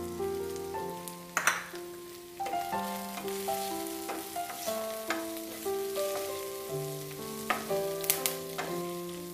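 Onions, chilies, spices and freshly added curry leaves frying in hot oil in a pan, with a steady sizzle and several sharp knocks of stirring against the pan. A melody of background music plays over it.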